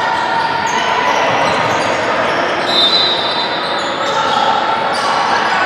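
Live sound of a basketball game on an indoor gym court: the ball bouncing and players moving, with scattered short high squeaks, echoing in the hall.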